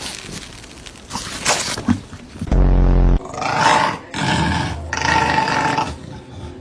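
A dog growling: a loud, low growl about two and a half seconds in, then several shorter growls.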